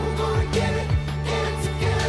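Background pop music with a steady beat, a low kick about twice a second under a held bass line.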